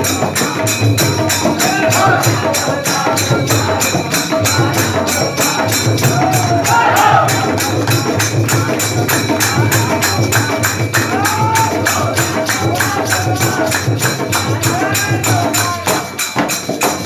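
Group of men singing a Holi folk song together to a dholak drum, with a fast, even beat of clapping and percussion, about four strokes a second.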